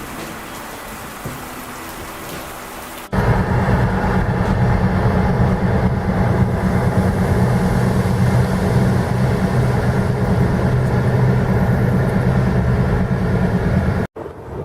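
Steady rain noise, then an abrupt cut about three seconds in to a much louder, steady rush of heavy rain mixed with vehicle noise that has a humming low note. It stops suddenly near the end.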